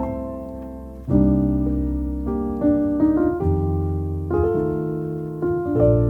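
Background piano music: slow chords and single notes held and left to ring, with new chords struck about a second in and again near the end.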